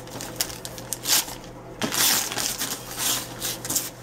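Wrapping paper being torn off a gift box in about four quick rips, with paper crinkling between them.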